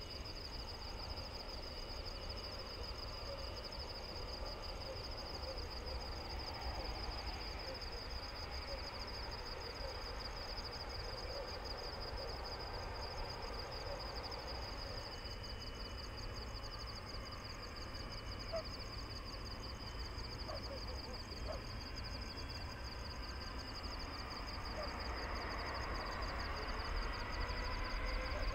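Distant jet engine rumble from a Boeing 777-300 on the ground, under a steady high-pitched trill. Over the last few seconds it grows louder, with a rising whine coming in.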